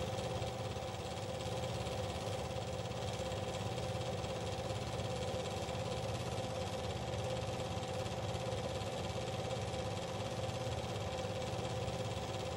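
A small motor running steadily: a constant mechanical whirr with an even hum.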